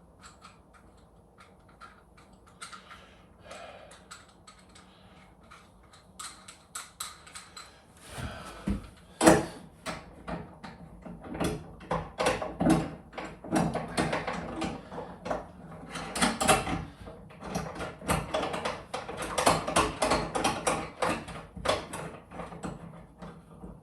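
Bath leg parts and hand tools being handled: scattered faint clicks at first, then from about eight seconds in a busy run of irregular knocks, clatters and rattles, the loudest knock about nine seconds in.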